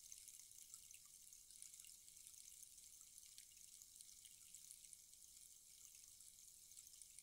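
Rainstick: a faint, steady trickle of its filling falling inside, a fine high hiss dotted with tiny ticks, like light rain.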